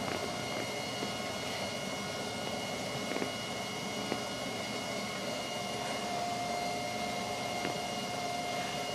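Cab noise of a stationary Sapporo streetcar: a steady hum and hiss with faint high whines, a few light clicks, and a steady mid-pitched tone that comes in about six seconds in.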